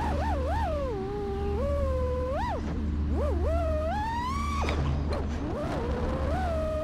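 FPV racing quadcopter's motors whining, the pitch sliding up and down constantly with the throttle; a little past halfway the whine climbs, then drops off sharply as the throttle is chopped, and picks up again. A steady low rumble of prop wash runs underneath.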